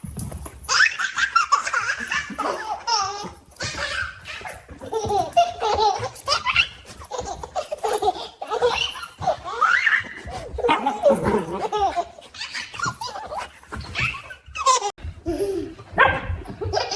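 A baby laughing again and again in short bursts of giggles.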